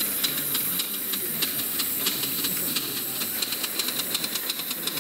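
Live-steam model locomotive pulling a driver along a track, its exhaust beats over a steady steam hiss. The beats come quicker as it gathers speed, about three a second at first and around five a second near the end.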